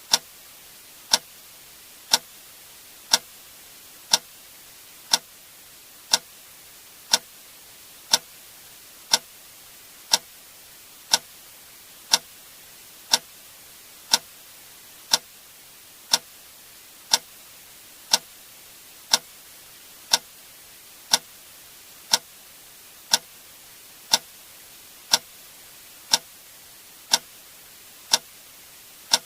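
A sharp click sound effect repeating steadily once a second, over a faint steady hiss.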